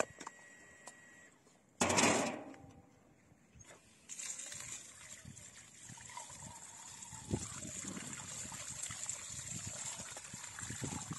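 A short loud rush of noise about two seconds in, then water running in a steady trickle.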